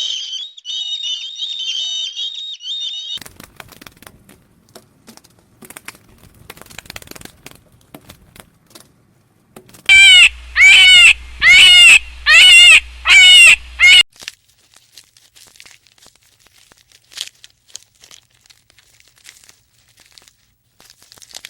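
Birds: a high, rapid twittering for the first few seconds, then rustling and light clicks. About halfway through come five loud, harsh calls in a row, about a second apart, followed by more faint rustling.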